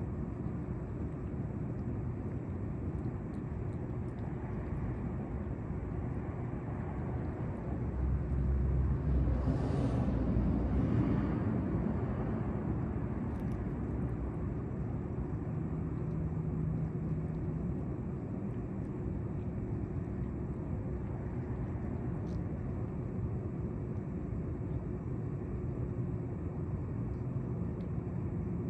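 Steady outdoor traffic rumble, with a vehicle passing and swelling louder about eight to twelve seconds in.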